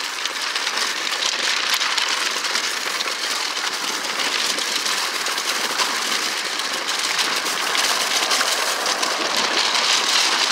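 Bicycle tyres rolling over rocks and loose gravel, a steady dense crackle much like rain.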